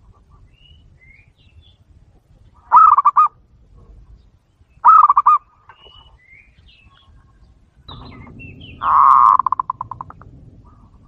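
Three loud bird calls, each a rapid run of notes; the third, near the end, trails off in a quick rattle. Faint high chirps of small birds sound between them.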